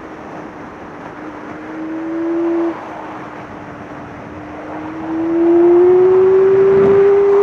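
Yamaha R6 sport bike's inline-four engine at speed on track, heard from on board over a rush of wind: its pitch climbs under throttle, drops sharply in loudness about two and a half seconds in as the throttle closes for a corner, then comes back loud about five seconds in, pitch rising as it accelerates out.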